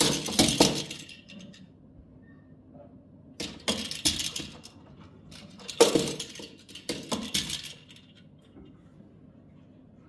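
African grey parrot playing with a plastic toy ball, setting it rattling and clinking in three bursts of quick clicks: at the start, around four seconds, and again from about six to seven and a half seconds.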